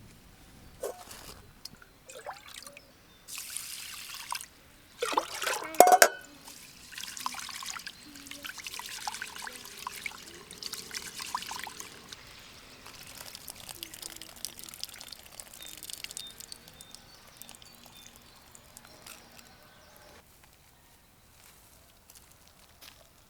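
Liquid pouring and trickling, with a louder splash and clatter about six seconds in, then a steady trickle that fades out near the end.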